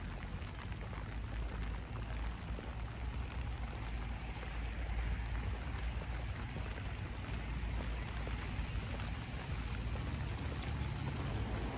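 Steady rain falling, with many small drops ticking throughout and a low steady rumble underneath.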